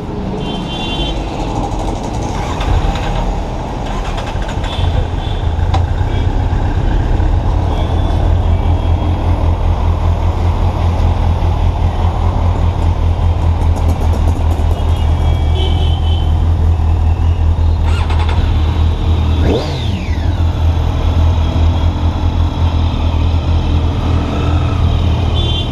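Motorcycle engine idling with a fast, even low pulse, growing louder about five seconds in. Street traffic runs around it.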